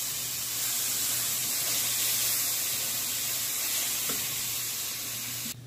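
Chopped mango and sugar sizzling in a hot non-stick frying pan: a steady, even hiss that cuts off suddenly near the end.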